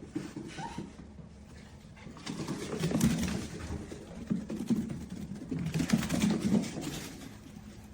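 A dog making low vocal sounds in three stretches of a second or so each.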